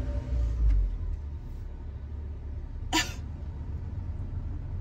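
Car engine running at idle, heard from inside the cabin as a low steady rumble that swells briefly in the first second, just after being restarted. One short, sharp sound about three seconds in.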